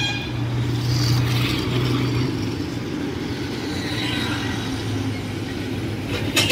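Auto-rickshaw engine running steadily as it drives along, heard from inside with road noise, with a quick clatter of knocks at the very end.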